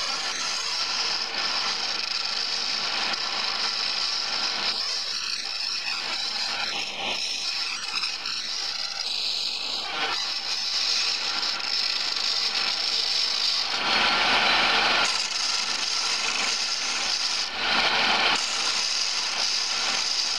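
Wood lathe spinning a long wooden handle while a skew chisel cuts it, a steady scraping cut of wood shavings coming off the spinning piece. The cut grows louder twice in the latter part.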